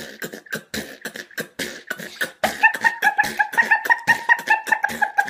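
Beatboxing through a hand cupped over the mouth: a quick run of mouth-percussion clicks and thumps. About halfway through, a held hummed note joins under the beat.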